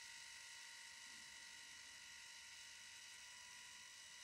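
Faint, steady whir of the Canon Zoemini S instant camera's built-in ZINK printer mechanism feeding a finished print out of its slot.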